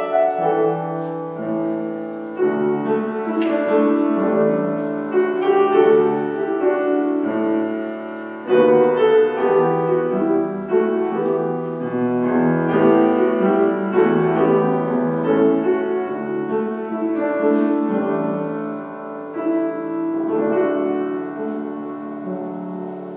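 Slow piano music: sustained chords and melody notes that ring on and change every second or so, growing softer near the end.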